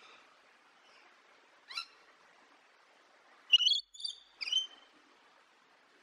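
Rainbow lorikeet calling: one short call about two seconds in, then three louder, high-pitched calls in quick succession past the middle.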